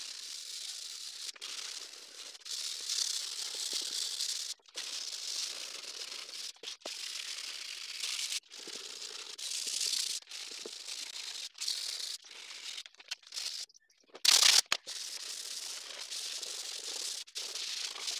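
Hand sanding with a sheet of sandpaper over a panel of torched wooden boards, rubbing back dried filler from the joints: a scratchy hiss in strokes that drops out abruptly several times.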